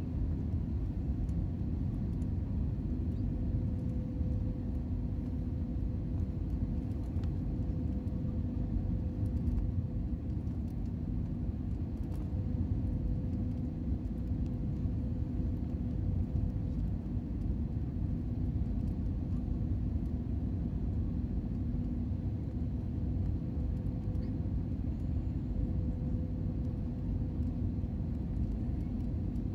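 Steady cabin rumble inside an Airbus A320neo (A320-251N, CFM LEAP-1A engines) on approach: engine and airflow noise heard from a window seat by the wing, with a faint steady hum running through it.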